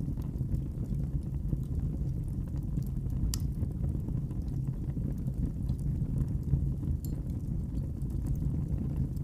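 Wood fire burning in a fireplace: a steady low rumble with scattered sharp crackles, one louder pop a little over three seconds in.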